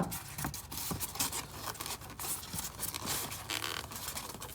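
A slit being cut by hand into packing material, a run of irregular scratchy scraping strokes.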